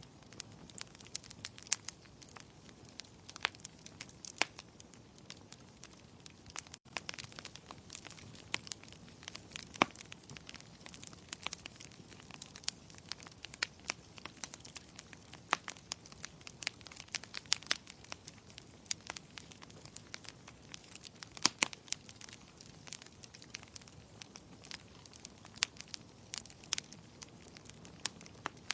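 Wood fire crackling in a fireplace: irregular sharp pops and snaps over a low steady hiss of burning, with the sound cutting out for an instant about seven seconds in.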